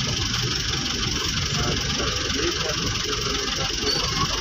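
A vehicle's engine idling steadily, heard from inside its cabin while stopped in traffic.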